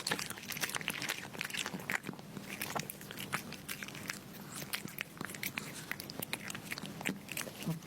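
Cat chewing crunchy dry food: a quick, irregular run of crunches over a faint steady hum.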